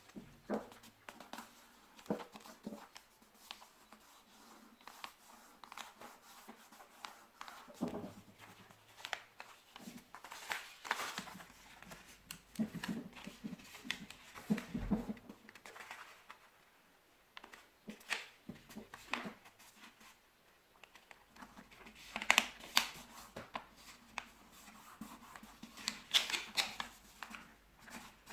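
A sheet of paper being handled and folded: irregular rustling and crinkling with sharp creasing clicks, loudest in a few clusters near the middle and toward the end.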